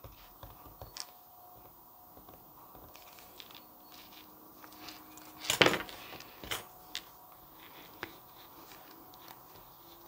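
Small craft tools handled on a cutting mat: light clicks and taps as a glue pen is set down and tweezers are picked up, with a louder scrape about five and a half seconds in and a few sharp clicks after it.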